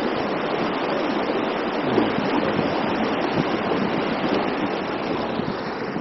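Rocky mountain stream rushing steadily over boulders at the head of a waterfall.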